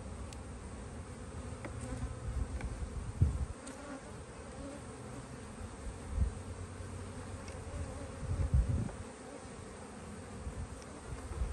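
Honey bees buzzing steadily at a hive entrance, with a few brief low bumps about three, six and eight and a half seconds in.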